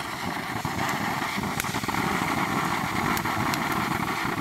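TNT Fireworks Surf's Up fountain burning with a steady rushing hiss of spraying sparks, with a few sharp crackles.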